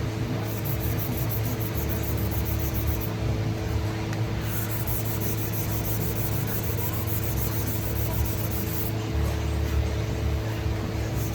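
Background music with a steady fast beat that drops out and comes back in sections, over a steady electrical hum.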